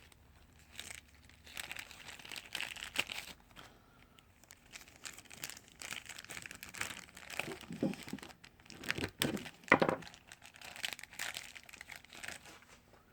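Packaging of a clutch master cylinder rebuild kit being opened by hand: irregular crinkling and tearing, loudest about eight to ten seconds in.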